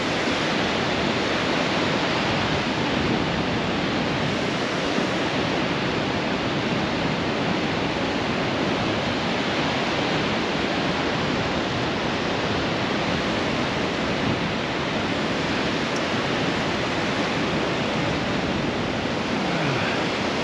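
Steady rush of wind and small waves breaking across shallow tidal flats.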